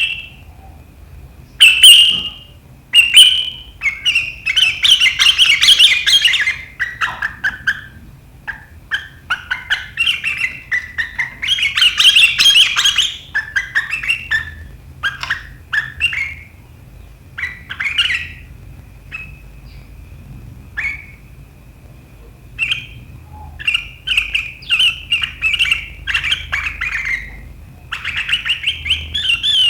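Sooty-headed bulbul calling in repeated bursts of rapid, sharp chattering notes ('riwik' calls), with short pauses between bursts.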